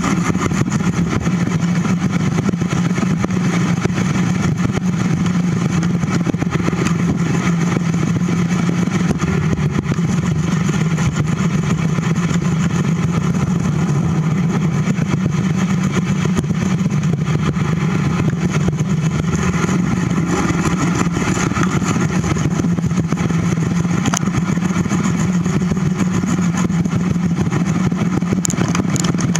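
Steady rushing noise picked up by a camera on a moving bicycle, from wind over the microphone and the bike rolling over pavement. It holds at an even level throughout.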